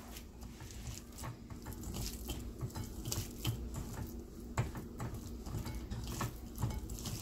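Bare fingers mashing and mixing boiled broccoli with raw onion and mustard oil on a ceramic plate: soft, irregular taps and rubbing of fingertips against the plate.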